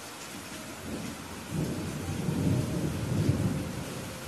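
Steady rain hissing, with a low rumble of thunder that swells about a second and a half in, is loudest in the middle and dies away toward the end.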